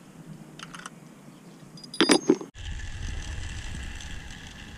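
Metal clicking and clinking of a screwdriver on stainless bolts, nuts and washers at an aluminium masthead bracket, with a few faint ticks and then a short, loud clatter about two seconds in. After a sudden cut comes a steady low rumble of wind on the microphone with a faint steady whine.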